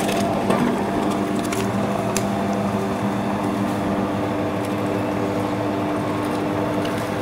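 Maksindo MKS-0.5 electric coconut-milk and fruit press running steadily while it presses crushed pineapple: a constant machine hum, with a few faint ticks.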